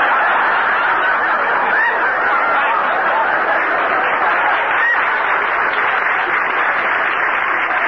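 A studio audience laughing long and steadily at a gag, heard on an old narrow-band radio recording.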